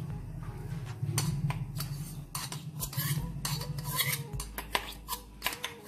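Steel grinder jar and a spoon clinking and scraping against each other and the rim of a ceramic bowl as coarsely ground almonds and walnuts are emptied out: a run of short metallic clicks and scrapes.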